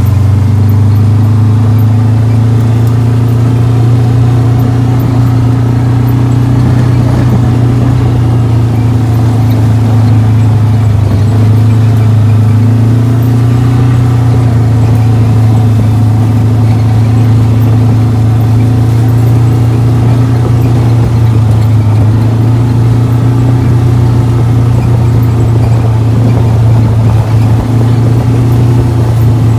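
Motor vehicle engine running loud and close at a steady low pitch while driving along.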